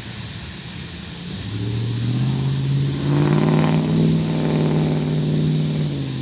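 Diesel locomotive engine at the rear of a departing freight train, throttling up: its low drone grows louder and rises slightly in pitch about a second and a half in, then holds steady, over a steady hiss.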